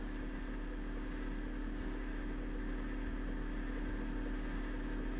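A steady low drone, held without change on a few level tones, between the drawn-out syllables of a slow Buddhist chant.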